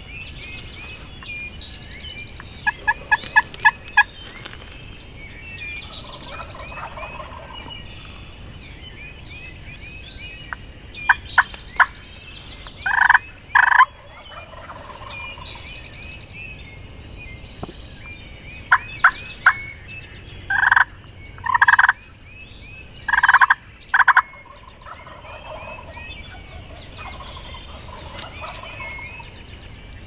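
Eastern wild turkey gobblers gobbling again and again. The loudest gobbles come in pairs about halfway through and again some twenty seconds in, over the steady chirping of other birds.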